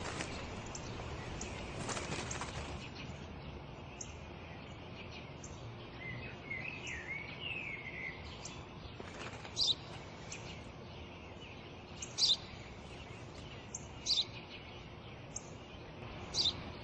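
Birds chirping outdoors: a short warbling call partway through, then a few single high chirps every two or three seconds, over a steady background hiss.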